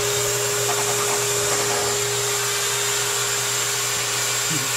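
Wall-mounted central vacuum power unit running steadily: an even rush of motor and air with a constant hum, pretty quiet for a vacuum, its exhaust going through a muffler.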